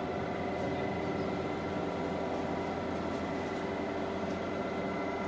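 TOS Trenčín SUI 32 lathe running steadily: an even mechanical hum with a few constant whining tones from the spindle drive and gearbox.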